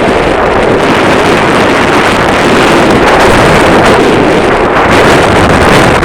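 Strong wind blowing across the microphone: a loud, steady rushing noise with a low rumble.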